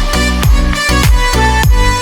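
Background music with a steady electronic dance beat: a deep bass kick about three times a second under sustained pitched notes.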